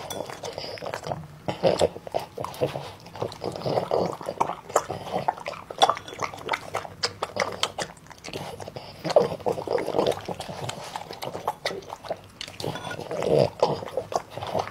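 French bulldog eating soft food from chopsticks: irregular wet chewing, biting and lip-smacking.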